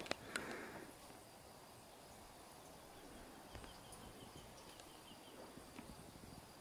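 Near silence: faint outdoor ambience, with a few small clicks and a brief rustle in the first second.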